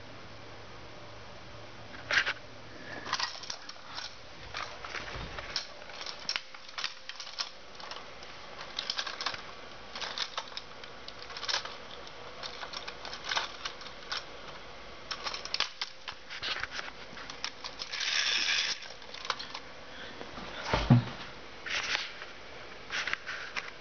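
Hard plastic toy horse clicking and tapping on a tile floor: irregular sharp clicks throughout, a short scrape about two-thirds of the way in and a heavier knock a little later. A faint low hum runs under the first few seconds and then stops.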